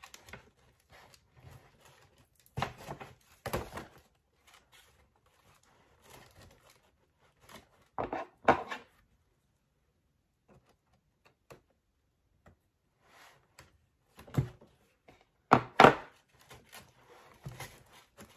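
Brown paper gift bag crinkling and rustling in several short bursts as it is worked open.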